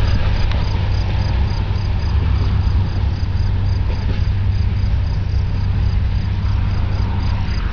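Crickets chirping in a regular, evenly spaced pulse over a steady low rumble.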